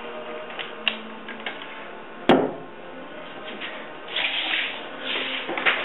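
Handling noise from an electric rotary buffer with a wool pad as it is set down: one sharp knock a little over two seconds in, then scraping and rustling.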